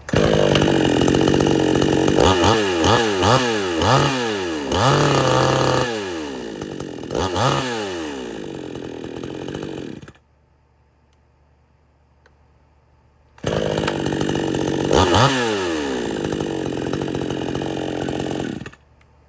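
Two-stroke gas chainsaw starting and running, its throttle blipped several times so the engine pitch rises and falls, then shut off about ten seconds in. After a few seconds of quiet a chainsaw starts again, is revved once and shut off near the end.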